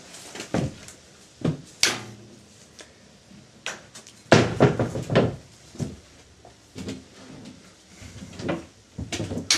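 A door being handled, with a series of separate knocks and bumps, the loudest cluster just before halfway through.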